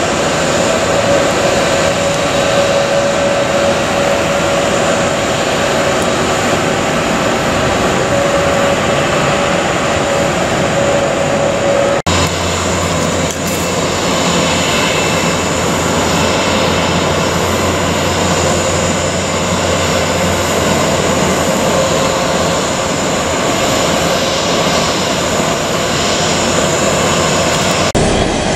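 Airliner jet engines running at taxi power, a steady hum and whine. The sound changes abruptly about twelve seconds in and again near the end.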